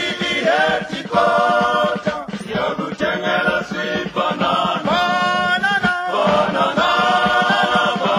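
Choral singing in a chant-like style, with pitched vocal lines rising and falling.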